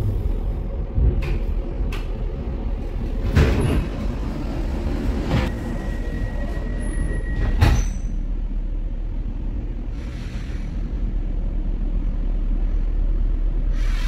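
Inside a Cologne Stadtbahn light-rail car standing at a station: a steady low rumble with a few knocks. About five seconds in, a steady beep sounds for about two seconds and ends in a loud thud, like a door-closing warning followed by the doors shutting.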